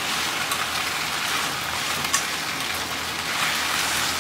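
Cabbage sizzling in sesame oil as it is stir-fried in a hot pan: a steady frying hiss with a few light ticks.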